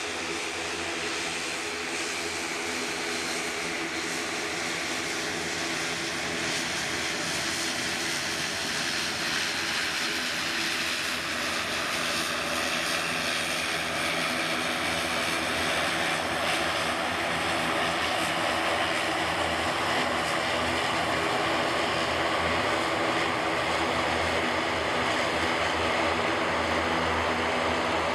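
Swiftair ATR 72-500 turboprop on approach, its Pratt & Whitney PW127 engines and propellers giving a steady hum with several held propeller tones. It grows gradually louder as the aircraft comes closer.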